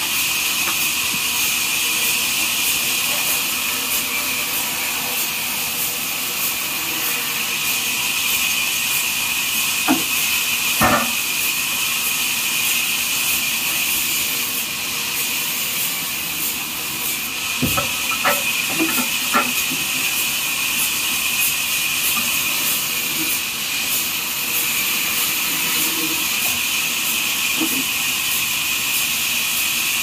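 Horizontal band sawmill running with a steady high hiss, and a few wooden knocks and clunks from the log and trolley carriage, once about a third of the way in and a cluster just past halfway.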